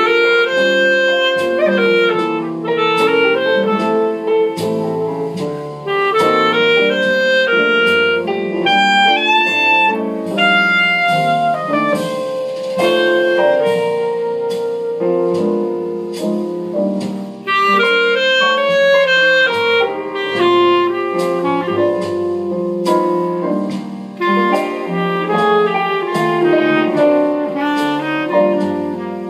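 LeBlanc Dynamic H clarinet playing a slow, legato melody with short breaths between phrases, over a sustained chordal accompaniment.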